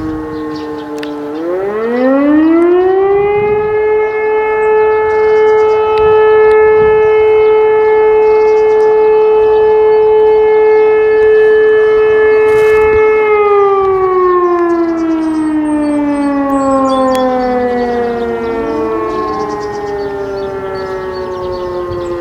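Motor-driven civil-defence sirens sounding in a siren test, several at once. One spins up about a second and a half in, holds a steady tone for around ten seconds, then slowly winds down, while others wind down and start up around it.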